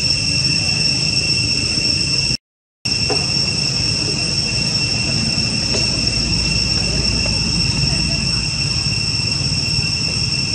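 Steady, high-pitched drone of insects chirring in chorus, with a low rumble beneath. It cuts out completely for a moment about two and a half seconds in.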